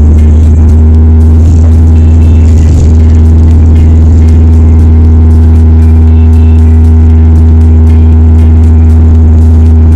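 Bombardier Dash 8-300 turboprop engines and propellers running at high power during the takeoff roll, a loud, steady deep drone heard inside the cabin right beside the engine.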